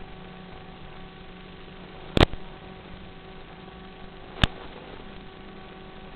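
Steady hiss and electrical hum on the audio track of FPV goggles' built-in recorder, with two sharp clicks about two seconds apart, the first a little over two seconds in.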